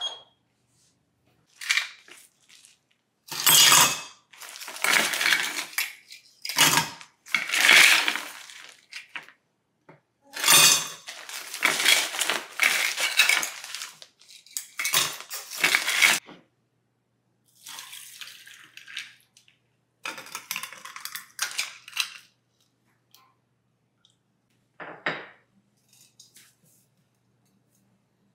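Ice cubes clinking into a glass mug: a dense run of loud clinks and clatter in the first half, then quieter clinks and a single one near the end.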